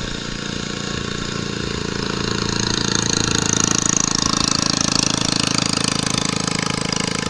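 A small engine running steadily, growing a little louder over the first few seconds, with a hiss rising over it in the middle.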